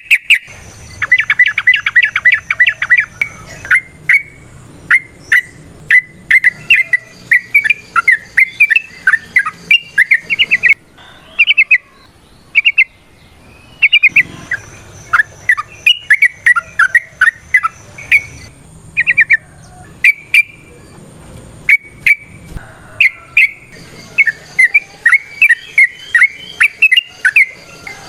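Yellow-vented bulbul singing a fast, varied chattering song of short, loud notes in quick runs, broken by brief pauses.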